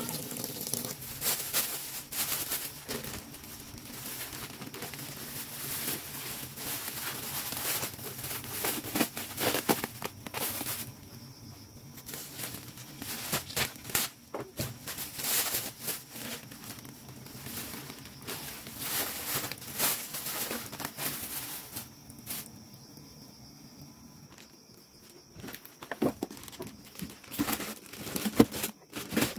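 Hands cleaning fish and shrimp: irregular crinkling, scraping and light tapping of handling noise, with two quieter pauses.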